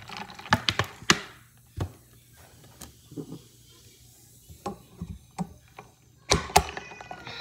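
Sharp clicks and knocks from a plastic soda bottle and a stainless steel tumbler being handled. Two loud clacks come about six seconds in, as the plastic lid is pressed onto the tumbler.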